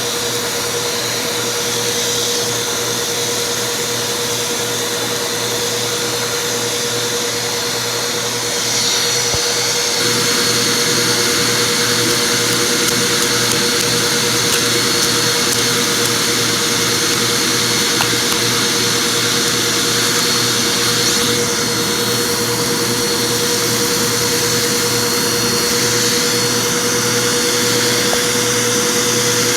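Vacuum cleaner running steadily with a constant whine, getting a little louder about a third of the way in, with a few faint clicks.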